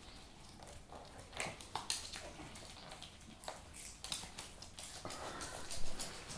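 A small dog chewing and crunching a hard treat: faint, irregular crunches and clicks, a little louder near the end.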